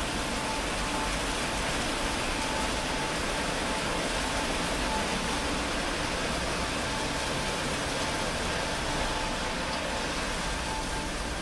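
Automatic rollover car wash running over a car: a steady rush of spinning brushes and water spray, with a faint broken whine through it.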